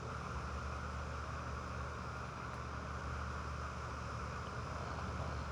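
Steady low mechanical hum under an even hiss, unchanging throughout, with no distinct calls or knocks standing out.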